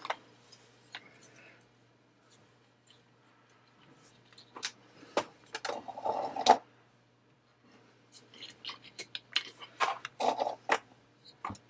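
Handling noise: scattered clicks, taps and scrapes as a small circuit board and its bundle of wires are moved about by hand close to the microphone. They come in two clusters starting about four seconds in, over a faint steady low hum.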